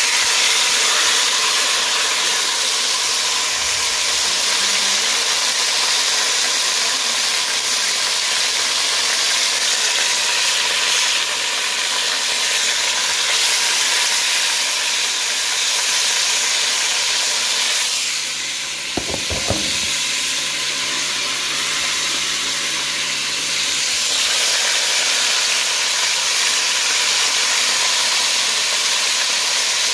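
Seasoned pork joint browning in a hot pot, sizzling steadily. A couple of short knocks come about nineteen seconds in.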